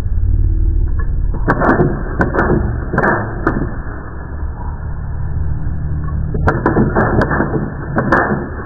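Wooden rubber-band toy gun firing: a series of sharp clicks, several in quick succession, in two bursts with a lull of about three seconds between them, over a steady low hum.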